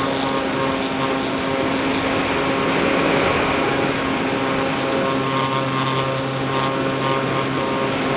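Electric motor and propeller of an Easy Star RC plane in flight, heard through the plane's own onboard camera: a steady whine over a dense hiss of airflow. A lower hum joins about five seconds in and drops out near the end.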